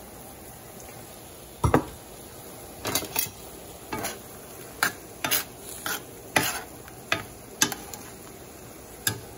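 A utensil stirring shrimp in a skillet, with about a dozen sharp, irregular knocks and scrapes against the pan. Under them runs a steady sizzle of shrimp simmering in white wine and lemon juice.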